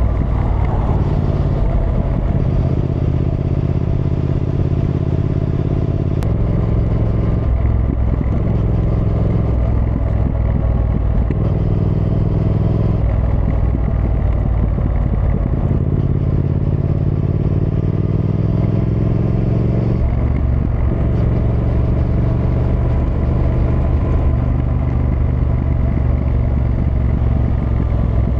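Triumph Thruxton R's 1200 cc parallel-twin engine running as the motorcycle rides along, its pitch shifting several times: a drop about six seconds in, slow rises in revs as it accelerates in the middle, and another step near twenty seconds.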